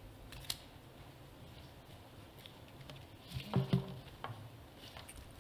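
Quiet room tone in a conference hall, with a sharp click about half a second in and a brief low sound about three and a half seconds in.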